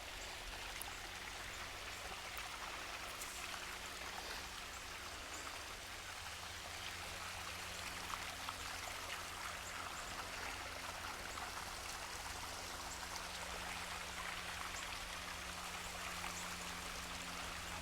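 Creek water running with a steady babble.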